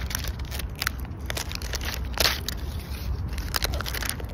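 Crinkly plastic wrapper being peeled and torn off a toy bottle: a string of irregular crackles, with the loudest crackle about two seconds in.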